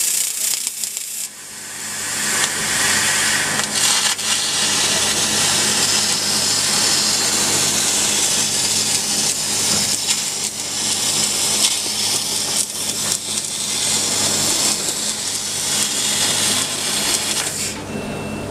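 Fiber laser cutting head cutting 10 mm carbon steel plate: a loud, steady hiss of the cutting jet and spraying sparks over a low machine hum, with a brief dip about a second in. The hiss stops near the end as the head lifts off the plate.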